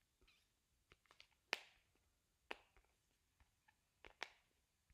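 Near silence with a scatter of faint, irregular clicks and taps from handling a small whiteboard and dry-erase marker; the loudest click comes about a second and a half in.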